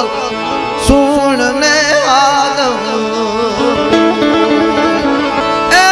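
Devotional song: a wavering instrumental melody, with one sharp percussion hit about a second in and a singing voice coming back in near the end.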